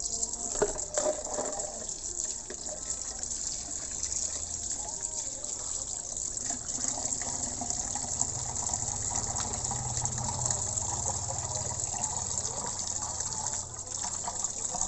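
Water running steadily from a tap, filling a container.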